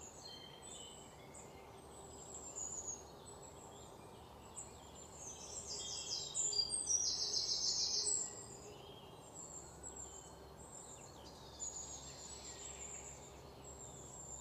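Birds chirping and singing: many short high calls, with a louder fast trill from about six to eight seconds in, over faint steady background noise.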